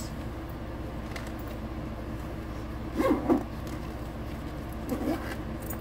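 Steady hum of a window air conditioner, with brief rustles and knocks of a fabric tote bag being handled about three seconds in and again near the end.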